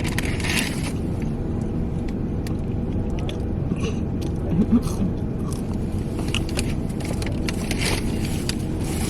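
An old, high-mileage pickup work truck running, a steady low engine and road rumble, with scattered faint clicks and a brief louder sound about halfway through.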